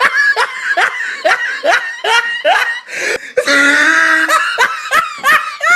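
A person laughing in quick, short rising 'ha' bursts, about two or three a second. About halfway through there is a longer held vocal sound, then the laughing bursts resume.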